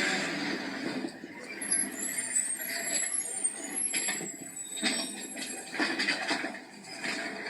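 Garbage-truck sound effect: high-pitched squealing for a couple of seconds over rough mechanical running, with scattered knocks and clatter.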